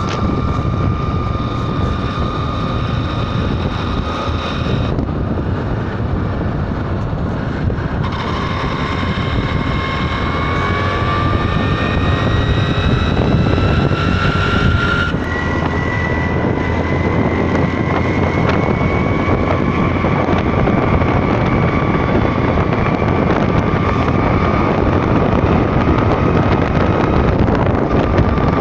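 A road vehicle travelling at speed, heard as steady loud road and wind noise. A whine climbs slowly in pitch and breaks to a new pitch a few times.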